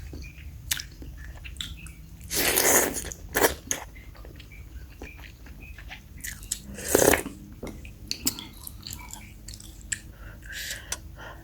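Close-up eating sounds of a person eating bakso meatball soup: chewing with small wet mouth clicks and smacks throughout, and two longer, louder noisy bursts about two and a half and seven seconds in.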